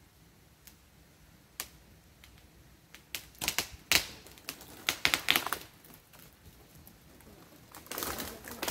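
Irregular sharp clicks and cracks: a few faint ones, then a quick cluster of louder cracks about halfway through, and a rising crackling rustle near the end.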